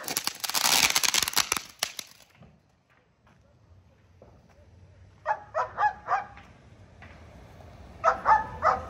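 A firework fountain spraying with dense crackling, cutting out about two seconds in. Then a dog barks in a quick run of about four barks, and barks again in another run near the end.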